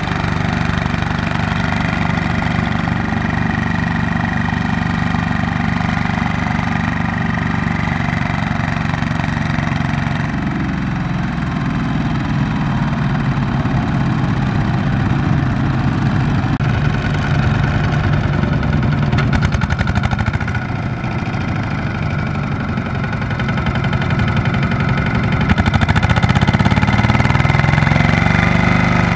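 Single-cylinder diesel engines of Kubota ZT155 two-wheel walking tractors running steadily under load, pulling loaded trailers through mud. The engine note rises and gets louder near the end.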